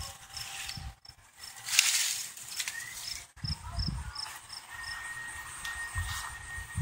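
Rustling of garden foliage and footsteps, with a run of short, evenly spaced high chirps, about three a second, that stop about four and a half seconds in; a thin steady high tone follows.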